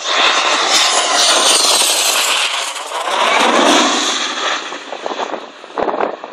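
Red Arrows BAE Hawk T1 jet with its single Adour turbofan passing low overhead on its landing approach, gear down. Its loud jet roar drops in pitch as it passes about three seconds in, then fades as it flies on towards the runway.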